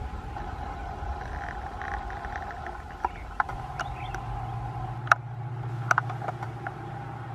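Indian Railways diesel locomotive hauling a passenger train drifting toward the viaduct, its engine a low steady drone that comes in about halfway through as it rounds the curve. A few sharp clicks sound over it.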